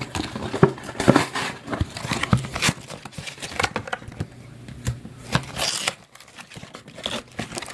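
Crinkling and rustling of a plastic trading-card pack wrapper being handled, with scattered small clicks.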